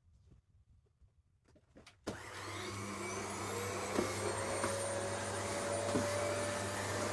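A few faint clicks, then about two seconds in a paper-bag vacuum cleaner switches on. Its motor whine rises in pitch as it spins up and settles into a steady run, with a couple of brief knocks.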